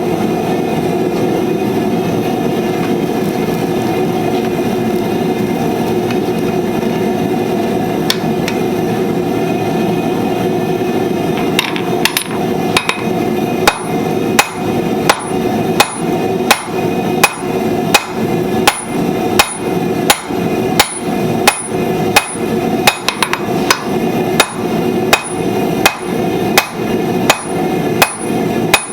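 Blacksmith's hammer striking hot steel on an anvil while forging tongs: evenly spaced blows, about two a second, that begin partway through. A steady rushing noise runs underneath throughout.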